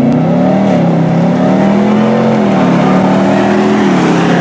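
Pickup truck engines at full throttle in a dirt drag race, from a GMC pickup and a Ford F-150 accelerating side by side. The engine note climbs, then drops at a gear change near the end.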